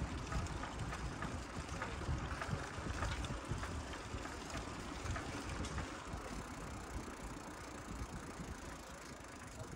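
Wind rumbling over the microphone of a camera riding on a moving bicycle, with light clicking and rattling from the bike. The rumble and clicks ease a little after about six seconds.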